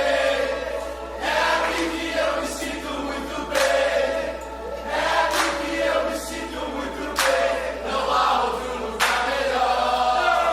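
Worship song sung live by many voices together, a congregation or choir holding sung lines.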